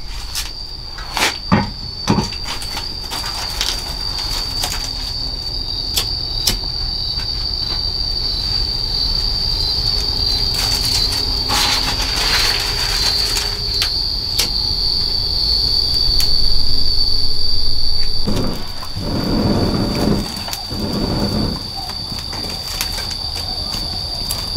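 Steady high-pitched drone of insects, with scattered clicks and knocks and a few stretches of rustling noise in the second half.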